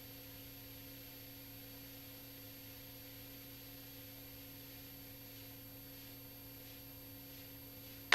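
Faint steady hiss with a low, even hum: the quiet background of an intercom or radio audio feed between transmissions.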